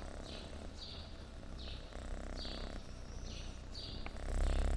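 Kitten purring while it is stroked and combed, the purr swelling near the end. A faint, high, scratchy sound repeats about every two-thirds of a second throughout.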